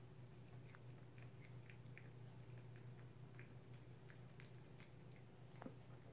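Toy poodle chewing a meat dental chew, faint irregular crunching clicks, over a low steady hum.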